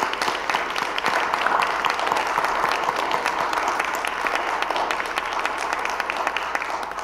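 A small congregation applauding, many hands clapping steadily.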